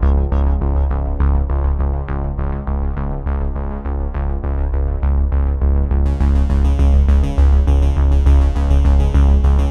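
Electronic synthesizer background music with a steady bass and quick repeated notes, about four a second. It sounds muffled at first, and the treble comes back bright about six seconds in.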